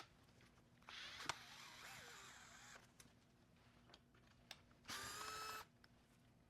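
Faint whir of a small electric screwdriver, in two short runs: about two seconds starting a second in, then a brief higher-pitched run near the end. A sharp click comes during the first run. The screwdriver is backing out the small screws that hold an LCD panel to its touchscreen.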